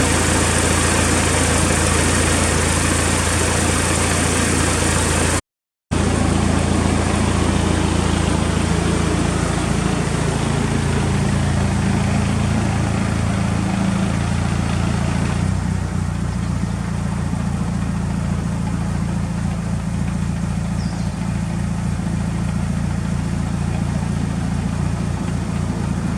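Mitsubishi Lancer Evolution VI GSR's turbocharged 4G63 inline-four idling steadily, fitted with an aftermarket muffler. The sound cuts out for an instant about five seconds in, and its low tone shifts a couple of times later on.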